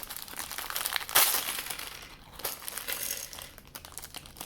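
Packaging being handled and pulled open, crinkling and rustling with small clicks, louder for a moment about a second in, as minifigure pieces come out of the box.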